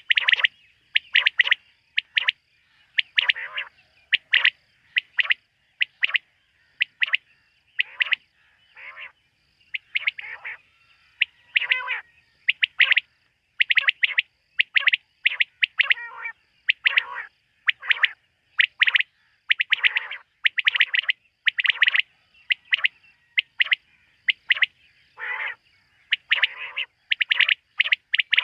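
Quail calling at night: short sharp notes repeated over and over, often in quick clusters of two or three, with gaps of dead silence between them.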